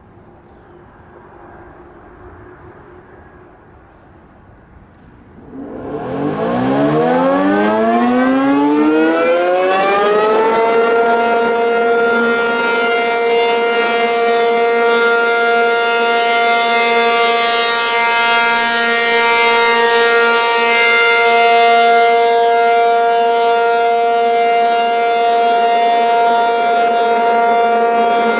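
ACA P-50 (Alerting Communicators of America Penetrator 50) rotating outdoor warning siren winding up about five seconds in, its pitch rising for about five seconds. It then holds a steady alert tone, loud and rich in overtones.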